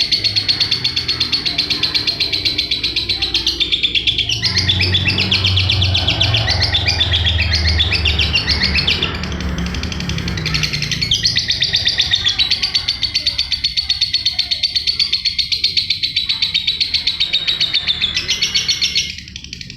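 Lovebird singing a long, unbroken chattering song: rapid high chirps and trills run on without pause, the continuous 'ngacor' song kept as a training recording for other birds.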